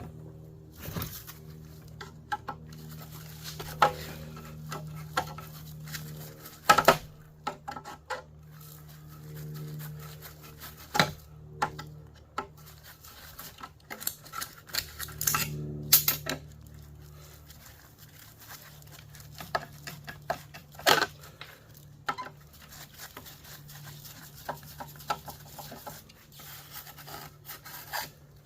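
Metal parts and hand tools clinking and clanking at irregular intervals as a line conditioner is pulled apart for scrap, over a steady low hum.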